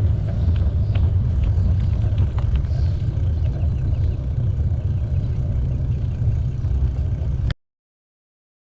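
Wind buffeting the microphone of a camera carried on a moving bicycle: a heavy low rumble with scattered small clicks and rattles. It cuts off abruptly about seven and a half seconds in.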